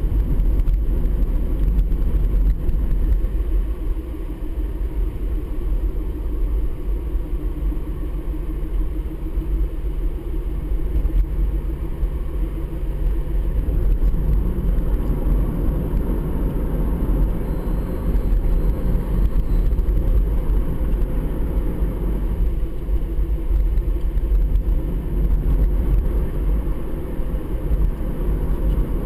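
Honda CR-Z hybrid driving at steady speed, heard from inside the cabin: a continuous low rumble of road and tyre noise with a steady engine hum underneath.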